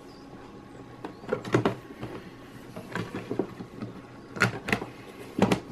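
Irregular light knocks and clicks of a laser-cut mimic panel fascia being handled and pressed into place on its box.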